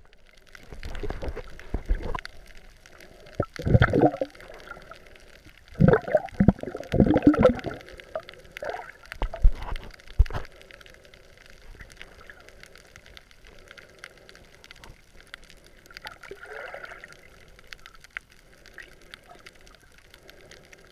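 Water bubbling and rushing, heard underwater through a sealed camera housing: loud irregular bursts of bubbles and water movement through the first ten seconds or so, then a quieter steady muffled underwater noise.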